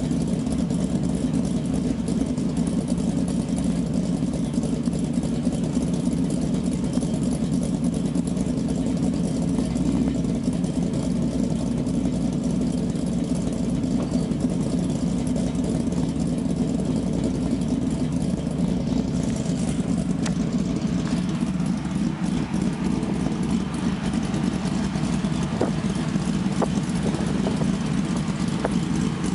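Ford SVT Lightning pickup's supercharged 5.4-litre V8 idling steadily, heard close to its tailpipes. A few faint light clicks come near the end.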